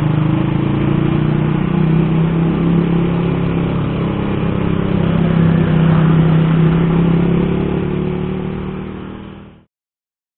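Rusi Korak motorcycle's engine running steadily at a low road speed, heard from the rider's camera on the bike. The sound fades out about eight to nine seconds in and gives way to silence.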